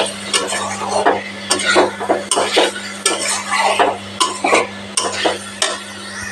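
Steel spatula scraping and knocking against an aluminium kadai while stirring fried eggs and potatoes through a thick masala that is cooking down almost dry. The strokes come irregularly, two or three a second, over a light sizzle.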